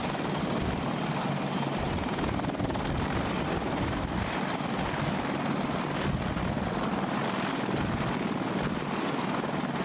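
AH-64 Apache helicopter running on the ground: its twin turboshaft engines and four-blade main rotor make a steady, loud, unbroken noise.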